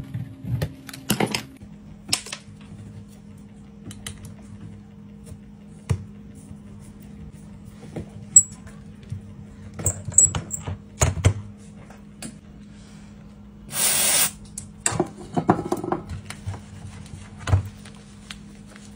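Scattered sharp clicks, taps and knocks of hand repair work on an iPhone 12 Pro Max's cracked back glass held in a metal clamp fixture, with a brief hiss about two-thirds of the way through. A steady low hum runs underneath.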